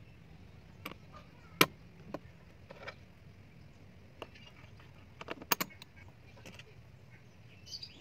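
Small metal clicks and taps as stainless-steel folding-knife parts are handled and fitted together over the handle pins. One sharp click stands out about a second and a half in, and a quick run of three or four clicks comes a little past the middle.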